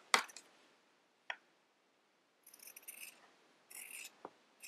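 Scissors cutting through embroidered fabric. A sharp click comes just after the start, then two short rasping snips of the blades through the cloth, about two and a half and three and a half seconds in.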